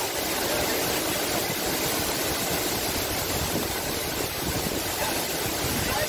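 Steady, unbroken rush of the Benang Stokel waterfalls' water crashing onto the rock pool at their foot.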